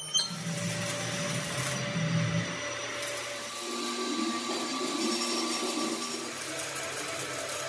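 Manual arc (stick) welding on a steel tractor front axle beam: the arc gives a steady crackling hiss.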